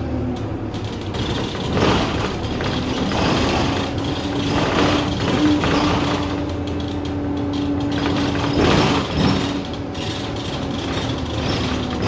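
Inside a moving bus: the engine runs with a steady hum, and every second or two the body's fittings squeak and rattle in short swells.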